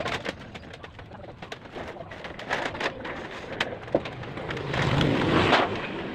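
Scattered clicks, taps and knocks from work on corrugated metal roofing sheets, with a louder stretch of clattering about five seconds in.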